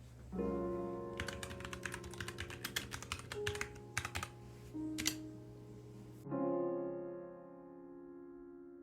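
Typing on a mechanical keyboard with Gateron Brown switches: a quick run of keystroke clacks for about three seconds, then a couple more near five seconds. Soft piano background music plays throughout and carries on alone for the last few seconds.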